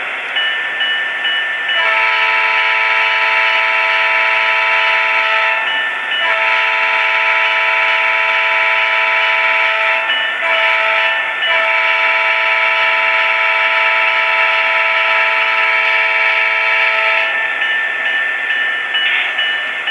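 HO scale model diesel locomotive's sound-decoder horn blowing the grade-crossing signal as a multi-note chord: two long blasts, a short one and a final long one. It plays over a steady hiss from the model's speaker.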